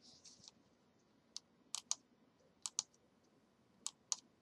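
About seven sharp, faint clicks of computer keys, mostly in quick pairs, after a brief soft hiss at the start.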